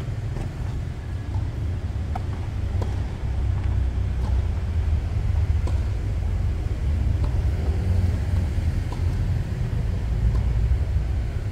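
Faint tennis ball hits in a rally, about one every second and a half, over a steady low rumble that is the loudest thing heard.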